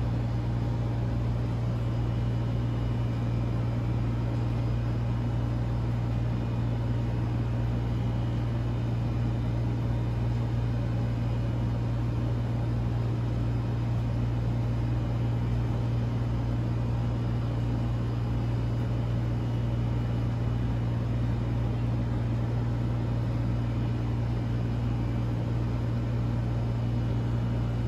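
A steady low hum over an even background hiss, unchanging throughout, like a running machine such as an air conditioner or fan.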